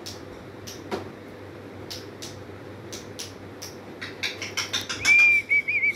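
African grey parrot's beak clicking and tapping on wicker, the clicks coming faster about four seconds in. About five seconds in, a loud high whistle starts, held at one pitch with a few quick warbles.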